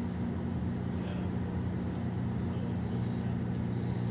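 A steady low hum, with a couple of faint light clicks of small parts being handled.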